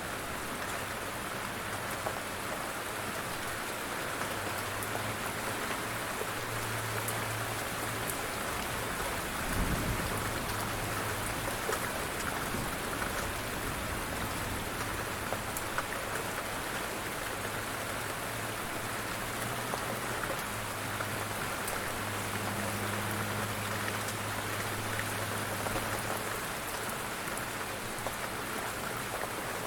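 Steady light rain, with scattered close drops tapping. A low hum comes and goes beneath it, and a short low rumble sounds about ten seconds in.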